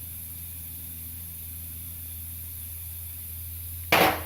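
Steady low hum with hiss, then near the end a single loud, short clank as a plasma-cut steel plate part is handled.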